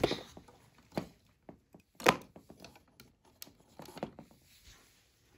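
Hard plastic action-figure weapons being handled: a few separate clicks and knocks, the loudest a sharp knock about two seconds in.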